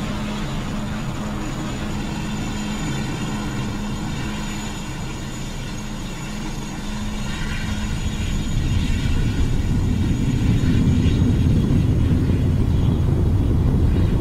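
Distant aircraft droning, its low rumble swelling and growing louder from about eight seconds in.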